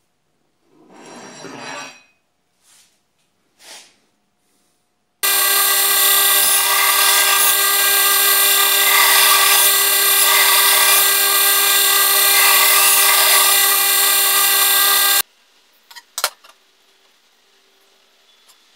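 Power grinder grinding an edge on a steel axe head cut from a motorcycle brake disc: a loud, steady whine with a rasping edge for about ten seconds, cutting in and out abruptly. Before it, a brief rattle as the steel pieces are handled on a table, and after it a couple of light clicks.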